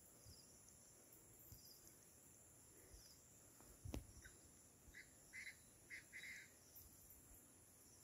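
Near silence: faint outdoor ambience with a steady high insect hiss, one sharp click about four seconds in, and four short bird calls just after the midpoint.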